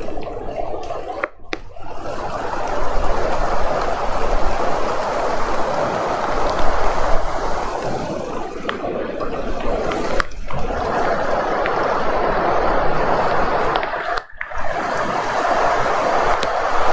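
Heavy rain falling steadily as a dense hiss of water, with a low rumble underneath for a few seconds in the first half. The sound drops out briefly three times.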